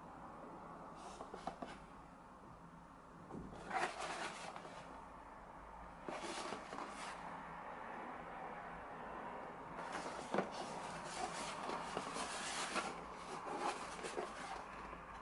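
A small cardboard box being handled and turned over in the hands, with scattered rustling and scraping of the cardboard and a few light knocks.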